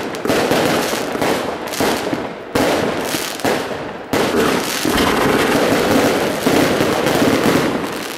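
Aerial fireworks going off in quick succession: a dense run of bangs and crackling, with fresh, louder volleys about two and a half and four seconds in.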